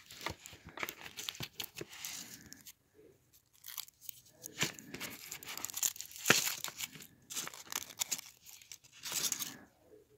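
Foil wrapper of a Hershey's dark chocolate kiss crinkling and tearing as fingers peel it off, in irregular crackles and rustles, with a sharp snap about six seconds in.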